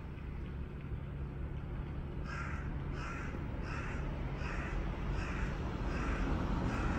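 A crow cawing seven times in an even series, starting about two seconds in, over a steady low rumble.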